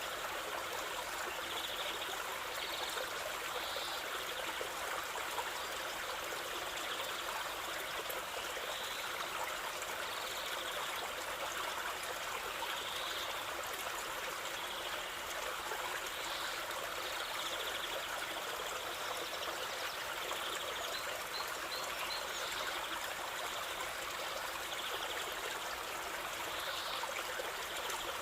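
A stream flowing and trickling steadily. Faint short bird chirps sound every few seconds over the water.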